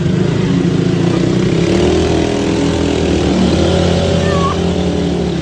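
ATV (quad bike) engine running at a fairly steady pitch.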